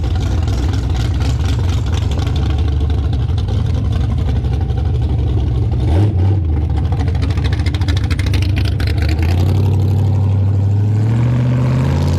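Engine and exhaust of a 1942 pickup running through custom stainless steel headers, a steady loud engine note. The engine speed shifts briefly about six seconds in, then climbs steadily over the last few seconds as it revs up.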